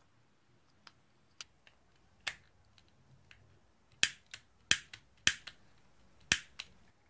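Sharp plastic clicks from the head of a Dremel VersaTip butane soldering iron being worked by hand: a few light clicks, then four loud snaps from about four seconds in, each followed by a softer click.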